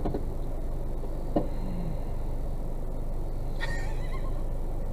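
Steady low rumble of an idling vehicle engine heard from inside a car. A single short knock comes about a second and a half in.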